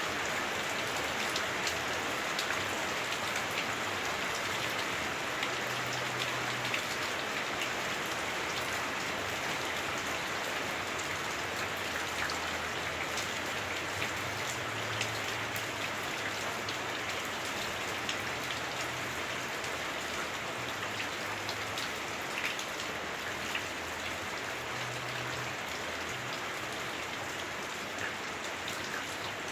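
Heavy rain on a house roof, heard from inside through the roof: a steady dense hiss with many small drop ticks throughout.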